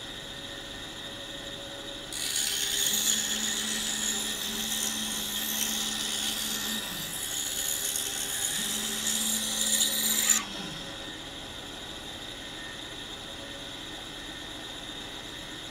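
Pegas scroll saw with a number 9 blade running, cutting through a small block of buckeye. From about two seconds in, a loud rasping hiss lasts about eight seconds as the blade bites into the wood, then cuts off, and the saw runs on with its quieter steady hum.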